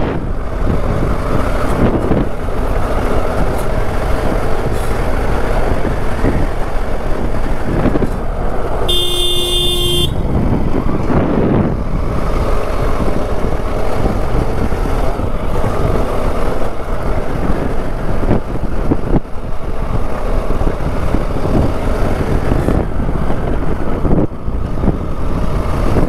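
Motorcycle engine and wind noise while riding. About nine seconds in, a vehicle horn sounds once, one steady tone held for about a second.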